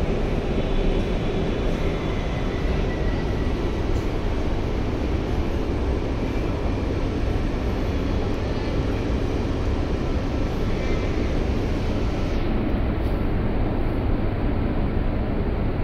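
Steady, even roar of ventilation and air-conditioning in a metro train car standing at a station.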